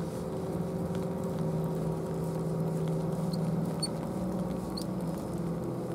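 An engine running steadily at an even pitch, with a few faint high chirps about three and a half seconds in and again near the end.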